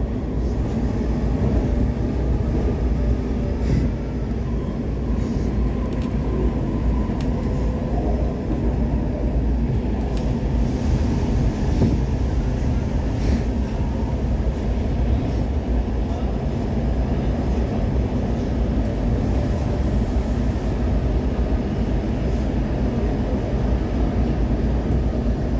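Steady rumble of a WMATA 2000-series Metro railcar running on its rails, heard from inside the car as the train passes from open track into a tunnel.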